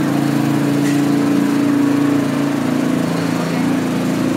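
Loud, steady mechanical drone of a running machine, a low hum with several steady pitches that holds without a break.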